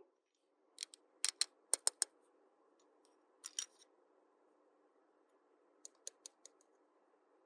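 Small hard plastic toy pieces clicking and tapping as they are handled: a quick run of sharp clicks about a second in, a pair near the middle, and a few lighter clicks near the end.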